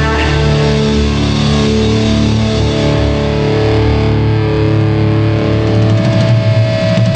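Live punk rock band playing loud, distorted electric guitars over bass and drums. About four seconds in, the sound thins to a held, ringing chord.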